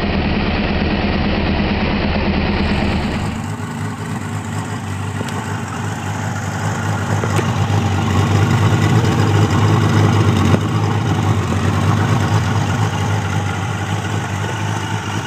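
Kawasaki GTR 1000 motorcycle's inline-four engine and exhaust running, first at a steady idle. About three seconds in it cuts to a second recording, where the engine note swells over several seconds and then eases off.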